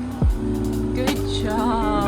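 Background music: a melody over held bass notes, with a deep drum hit near the start.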